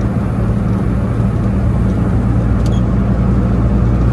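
Car engine and road noise heard from inside the cabin while cruising at a steady speed: a constant low drone that holds one pitch throughout.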